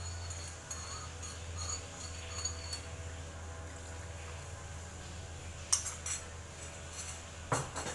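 A utensil clinking sharply against a stainless steel cooking pot in two short clusters near the end. Under it a steady low drone runs throughout, which the on-screen caption puts down to a grass-cutting machine, and a string of high chirps sounds in the first few seconds.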